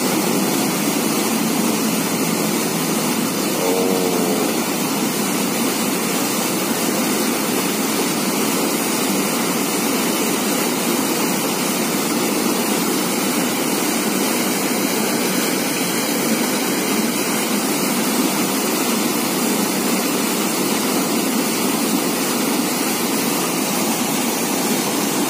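Steady rush of churning water pouring through the opened sluice gate of a river dam.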